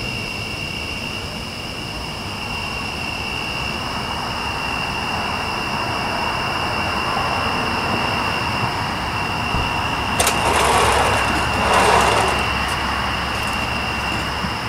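Outdoor night ambience with a steady high-pitched tone throughout, as a vehicle passes: its noise swells gradually to a peak about ten to twelve seconds in, then fades away.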